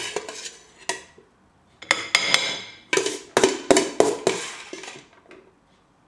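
Metal serving spoon clinking and scraping against a stainless steel pot while cooked rice is scooped out: a run of sharp, ringing clinks, thickest in the middle, that die away near the end.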